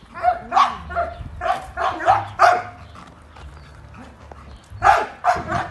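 A dog barking: a quick run of about seven short barks, a pause of about two seconds, then two more barks near the end.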